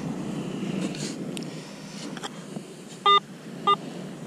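Two short electronic beeps from a metal detector about three seconds in, about half a second apart, sounding on a metal target in the sand being dug, which turns out to be a scrap of tin can. Behind them is a steady low noise.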